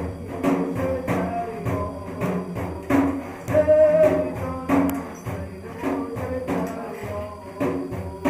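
A daf, the large Persian frame drum with jingling metal rings inside, played in a steady rhythm: deep strokes about every half second with lighter jingling strikes between. A short wavering pitched sound rises over the drumming about three and a half seconds in.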